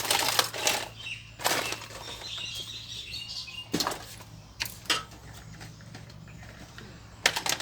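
Toys being handled and rummaged through in a basin: a run of rustling and knocking in the first second, then scattered knocks and clatters, with a sharp one just before the end.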